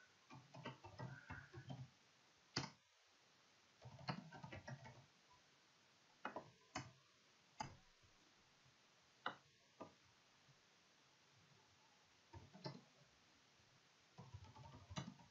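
Faint clicking of computer keyboard keys in short, irregular bursts of typing, with pauses between the bursts.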